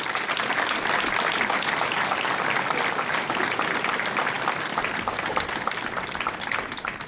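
An audience applauding: many people clapping together in a steady patter that thins out and fades near the end.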